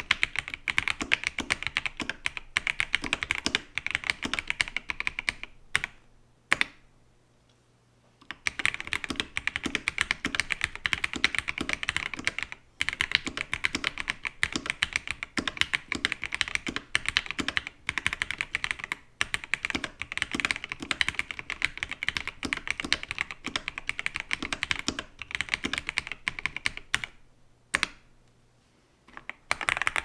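Fast, continuous typing on a Keychron V1 Max mechanical keyboard with Gateron Jupiter Red linear switches and OEM-profile keycaps, fitted in a 3D-printed case: a dense run of key clacks. The typing breaks off briefly twice, about six and a half seconds in and again near the end.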